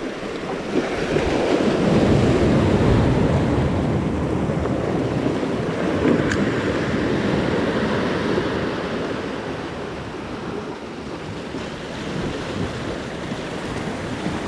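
Sea waves breaking and washing over rocks close by. The surge swells louder about two seconds in and eases after about eight seconds.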